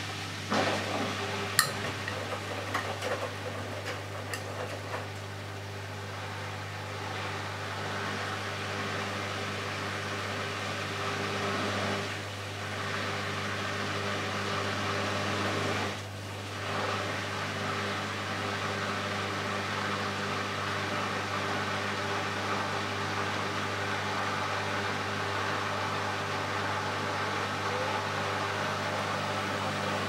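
Bosch WAQ283S1GB front-loading washing machine's drum motor running with a steady hum. Laundry knocks and thuds in the drum over the first few seconds, the hum dips briefly twice, and then it grows gradually louder as the drum picks up speed.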